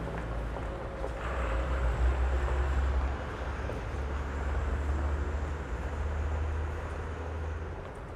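Traffic on a high street: a vehicle's low engine rumble builds about a second in and fades near the end, over steady background street noise.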